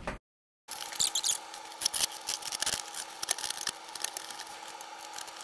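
Scissors cutting through the packing tape along the seam of a cardboard shipping box: an irregular run of snips, clicks and crackles of tape and cardboard, over a faint steady hum. The sound begins after about half a second of dead silence.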